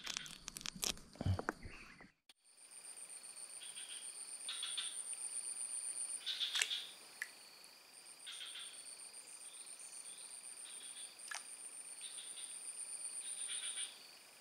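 Swamp chorus of insects and frogs: steady high-pitched insect trills with short pulsed calls repeating over them. A few handling clicks come in the first two seconds, and a couple of single sharp clicks come later.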